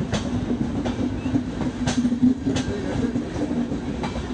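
Passenger train running along the track: a steady rumble with the wheels clicking over rail joints about once a second.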